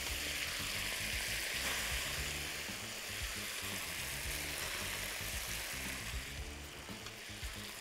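Wet spaghetti sizzling as it is lifted with tongs into a hot pan of olive oil and butter: a steady hiss that eases a little near the end.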